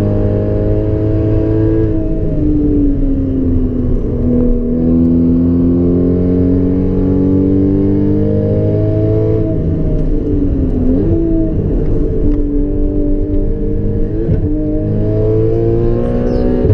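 2014 Porsche Cayman S flat-six with a Borla aftermarket exhaust, heard from inside the cabin while driven hard on track. The engine note sags and climbs with the throttle, with a quick sharp dip about eleven seconds in.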